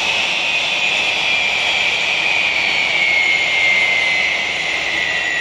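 Pratt & Whitney PW4000 turbofan engines of a parked Boeing 777-200 running with a loud steady roar and a high whine that slowly falls in pitch, as the engines spool down at the gate.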